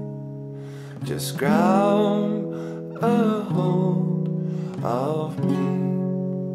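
Nylon-string acoustic guitar being played, a new chord picked about every two seconds and left to ring and fade.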